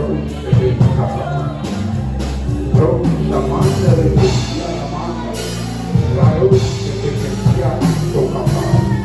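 Live worship band playing: drum kit, bass and keys under singing voices.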